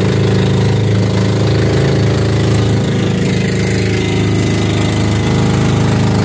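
Diesel engine of a motorized outrigger boat running steadily while under way.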